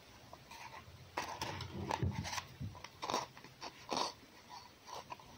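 An animal crunching and chewing food in irregular bites, starting about a second in.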